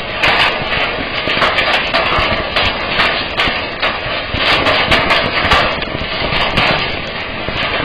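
Hail falling heavily: a continuous dense clatter of hailstones striking corrugated sheeting and the ground, with many sharp individual hits.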